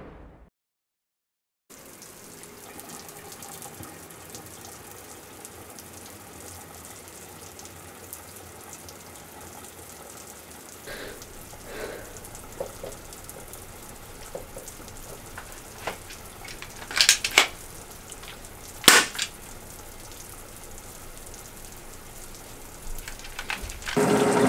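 After a second and a half of silence, a faint steady hiss with a few soft knocks, then three sharp clicks a little past the middle. Near the end a shower's spray comes in, much louder.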